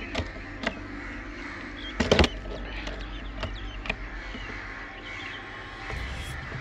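Air rifle shot: a quick cluster of sharp cracks about two seconds in. Crows caw in the background throughout.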